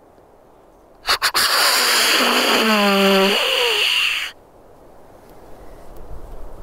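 Deer call imitating a whitetail buck's snort-wheeze: three quick sharp puffs, then a loud hissing rush of air about three seconds long with a brief falling tone partway through, cut off abruptly.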